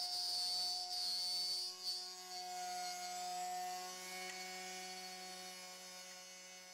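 CNC router milling a wood-turned bowl's side wall: a steady machine whine of several tones with a high cutting hiss. The hiss eases after about two seconds and the whole sound fades toward the end.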